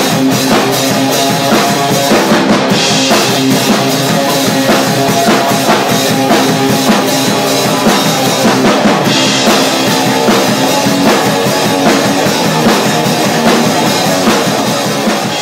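Loud rock music led by a drum kit played hard and fast, with guitar. Cymbals wash in about three seconds in and again about nine seconds in, and the level starts to fall near the end as the track fades out.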